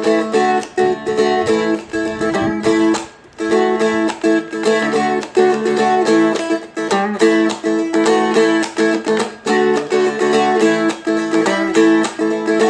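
Seagull Merlin, a small four-string diatonic dulcimer-family instrument, flatpicked: a quick riff of picked notes over a steady ringing drone, with a short break about three seconds in.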